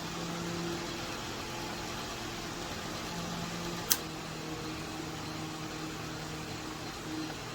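Small four-blade USB table fan (Holmes 6-inch Heritage) running steadily with a motor hum and rushing air. Its switch clicks at the start and again about four seconds in, but the fan keeps running instead of turning off: the switch is faulty.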